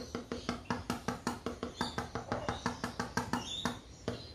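A quick, slightly uneven run of hollow knocks or taps, about six a second, with a woody ring, stopping shortly before the end.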